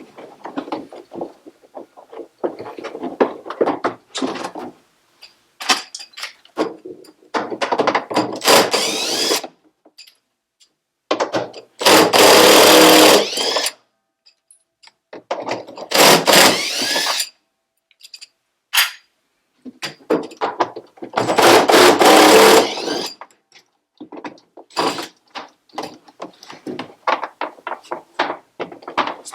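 Power drill-driver running in three loud runs of about two seconds each, its whine bending in pitch, most likely backing screws out of the washing machine's drum assembly. Between the runs come clicks and clatter of parts being handled.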